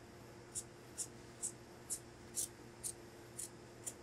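Large tailor's shears cutting through coat fabric, eight short crisp snips about every half second as the blades close along the cutting line.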